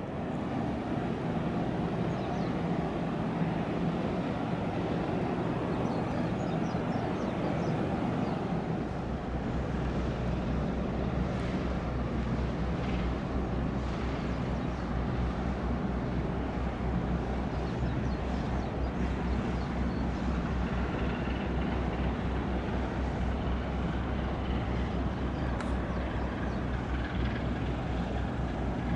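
Steady engine drone with a deep hum that becomes steadier about nine seconds in.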